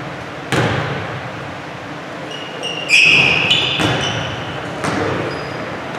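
A basketball thumping on a hardwood gym floor a few times, with a flurry of short, high-pitched sneaker squeaks about three seconds in. The thumps ring on briefly in the hall.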